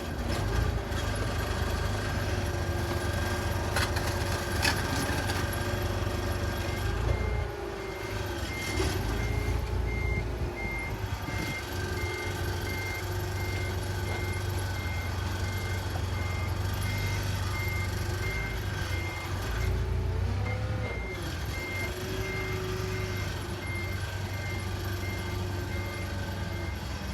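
Truck engine running, its pitch rising and falling a few times, with a reversing alarm beeping steadily from about seven seconds in. A few sharp clicks come early on.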